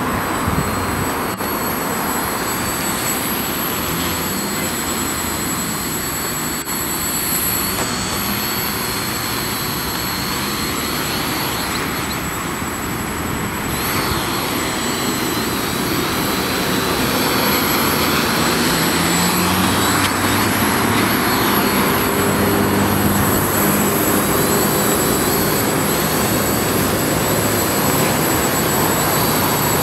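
Steady road-traffic noise, then from about halfway through the buzzing whine of a small DIY quadcopter's electric motors and propellers. The whine grows louder as the quadcopter lifts off and hovers, its pitch shifting up and down as the motors correct.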